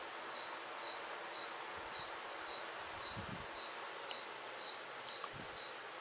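Insects chirping: a steady, fast, high-pitched trill with a lower chirp repeating about twice a second.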